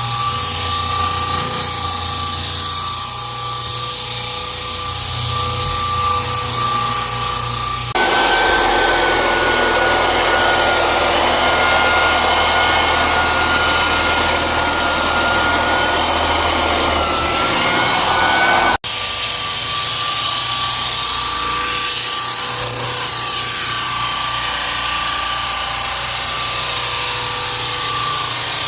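Floor sanding machines running steadily over hickory engineered hardwood, a loud grinding with a high whine. The pitch of the whine jumps about eight seconds in and drops back a little past the two-thirds mark.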